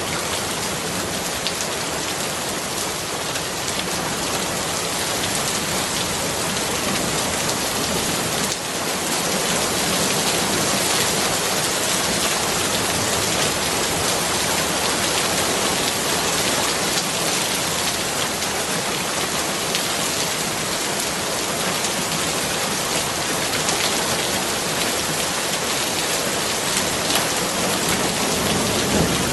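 Steady, heavy rain falling, a dense even hiss of drops on surfaces, growing slightly louder about a third of the way through.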